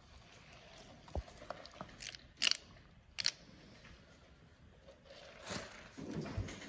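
Close-up mouth sounds of drinking through a straw from a foam cup: sips with a few sharp wet clicks. Near the end the cup is set down on the table with a soft thud.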